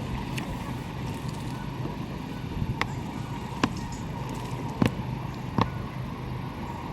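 Wheelchair rolling along a park path: a steady low rumble with a faint steady whine, broken by several sharp clicks and knocks as it goes over the surface.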